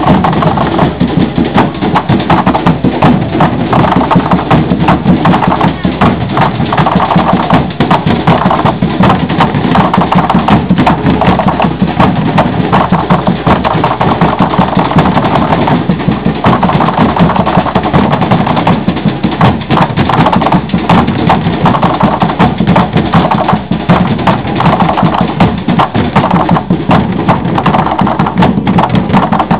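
Coco de zambê performance: loud, dense hand-drum strokes with voices over them.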